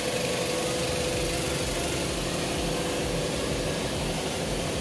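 A steady, unchanging mechanical hum over a hiss, like a small motor running.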